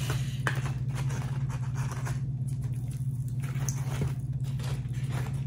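Crisp fried tortilla chips rustling and clicking as they are shuffled and flipped by hand on a paper-towel-lined paper plate, a string of small irregular crackles over a steady low hum.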